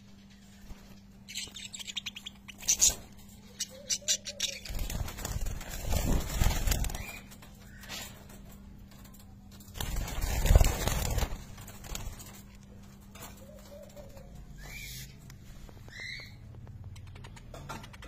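Budgerigars in an aviary: rapid clicking and scratching early on, a few short chirps, and two longer bursts of wing flapping about five seconds in and again near ten seconds.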